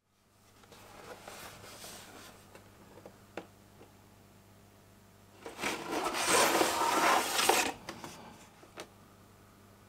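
Hands handling a plastic model kit: soft rubbing of the cardboard box with a few light clicks, then, about five and a half seconds in, a louder rustle of the bagged plastic sprues being lifted out for about two seconds, followed by a couple of small clicks.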